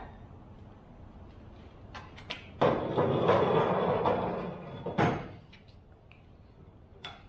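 Steel piston rod of a forklift hydraulic cylinder sliding and scraping against metal for about two seconds as it is drawn out and laid along a steel workbench, then a single sharp metal clank. A few light clicks come before the slide.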